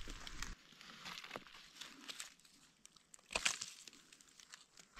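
Dry leaf litter crackling and rustling faintly as a gloved hand reaches in and picks a mushroom off the forest floor, with a louder rustle about three and a half seconds in.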